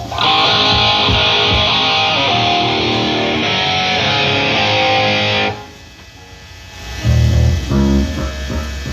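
Electric guitar played through a concert PA during a soundcheck: a loud chord held for about five seconds, then cut off suddenly. About a second and a half later, low bass notes start.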